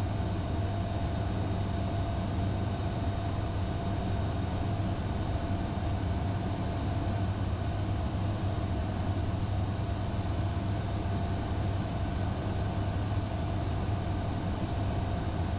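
Steady flight-deck noise of a Bombardier Challenger business jet in flight: a constant rush of airflow and engine and air-conditioning hum, strongest in the low range, with a faint steady whine above it.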